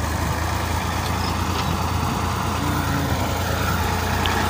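Farm tractor's diesel engine running steadily with a low hum while it pulls a three-body ridger through tilled soil, forming raised beds for onion planting.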